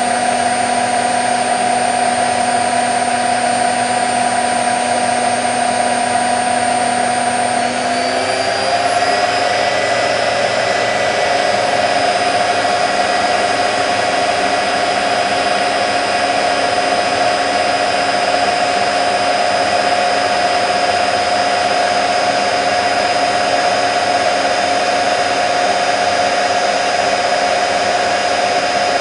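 Candy Nova CN146 washing machine in its fast final spin (up to 1400 rpm): a steady motor whine over the rush of the spinning drum. About eight seconds in, the whine shifts slightly higher as the drum speed changes, then holds steady.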